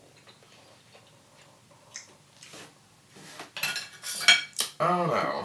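Knife and fork scraping and clinking on a plate, cutting into French toast, starting about three seconds in with faint clicks before. Near the end comes a short wordless vocal sound from the eater.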